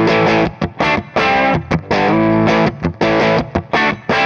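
Gibson Les Paul played through an AmS Tornado 20, a 20-watt valve amp head with two EL84 output valves, set to crunch with the guitar's volume full up. Distorted chords ring out in short phrases, with brief stops between them.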